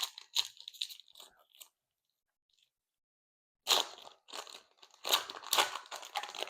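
Crinkling and crackling of a foil trading-card pack wrapper being handled and torn open. There are a few quick crackles, a pause of about two seconds, then a louder, denser run of crinkling from a little before the four-second mark.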